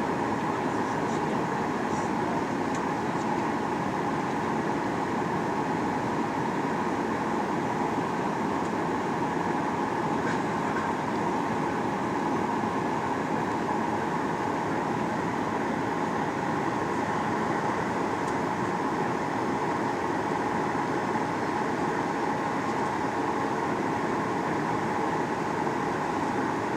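Steady cabin noise of a Boeing 737-800 in flight: an even hiss of airflow over the fuselage with the hum of its CFM56 engines.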